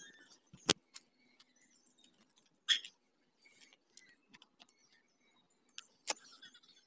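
Footsteps crunching on a dry, stony dirt footpath, with soft rustling in between and three sharper cracks spread through.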